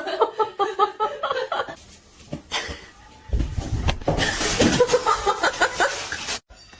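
People laughing in quick repeated bursts for nearly two seconds. After a lull there is a low rumble of noise, then more laughter over noise that cuts off abruptly near the end.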